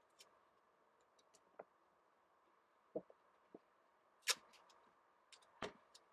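Brown packing tape and cardboard being handled: scattered faint clicks and taps of cardboard pieces, with a short crackly rip of tape pulled off the roll about four seconds in and a few more tape crackles just after.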